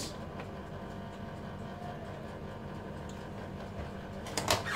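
A steady mechanical hum, with a brief noise near the end.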